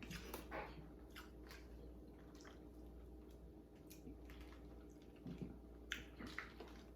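Faint wet eating sounds from king crab: soft clicks and squishes of the shells and meat being handled and chewed, with a couple of sharper clicks about six seconds in.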